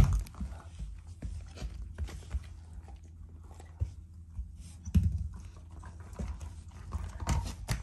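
Shiba Inu gnawing and pawing at an ice cube on a carpet: scattered clicks and knocks of ice against teeth and floor. Louder thumps come at the start, about five seconds in and near the end.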